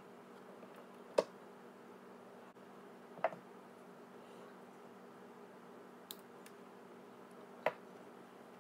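Small hand tools and parts being handled on a wooden desk: four short, sharp clicks and taps a second or two apart, over a faint steady hum.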